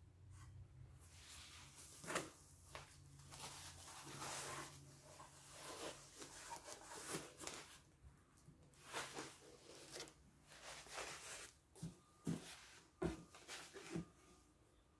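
Cardboard box and foam packaging being handled: irregular rustling and scraping as engine-bay covers are unpacked, with a few sharp knocks, one about two seconds in and two near the end.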